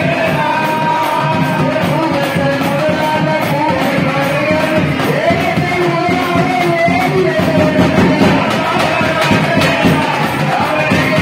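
Devotional singing over loud instrumental music, one wavering voice line carrying steadily over a dense rhythmic accompaniment.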